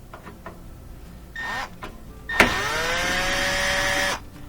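Cordless drill/driver with a Torx 15 bit backing out a screw. The motor gives one short burst, then about a second later spins up with a rising whine and runs steadily for nearly two seconds before stopping.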